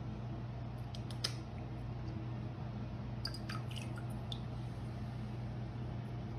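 A cat licking its paw: a few faint, wet licking clicks about a second in and again around three to four seconds, over a steady low hum.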